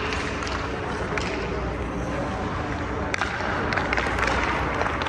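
Hockey skate blades scraping on the ice as a goalie shuffles across the crease, with a few sharp clicks of sticks on the ice, the clearest about three seconds in, over the steady hum of an indoor rink.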